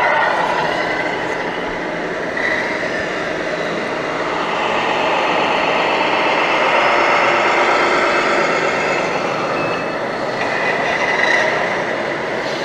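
1/14-scale radio-controlled model trucks running: a steady mechanical drone with whining tones that slowly rise and fall.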